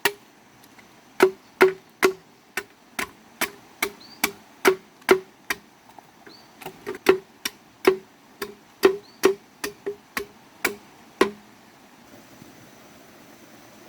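A series of sharp chopping knocks, irregular at about two to three a second, each with a short hollow ring; they stop about eleven seconds in, leaving a faint steady hiss.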